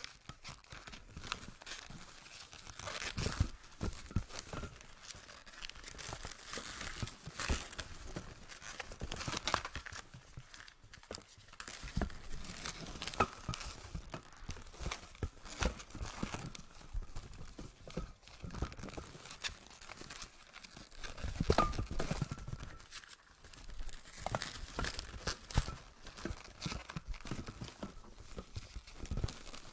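Inflated latex 260 modelling balloons rubbing, squeaking and creaking against each other as they are twisted into pinch twists and wrapped by hand, in irregular rustles and squeaks, loudest about two-thirds of the way in.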